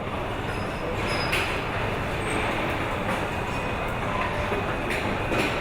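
Steady machinery noise on a car assembly line, with a few sharp clanks, about a second in and twice near the end.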